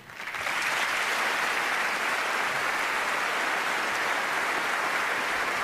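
A large theatre audience applauding: a dense, steady clapping that swells up over the first half second and then holds.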